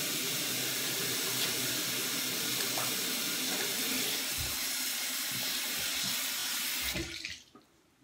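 Bathroom sink tap running steadily, the water splashing over hands being washed in the basin; the tap is shut off about a second before the end and the rush stops.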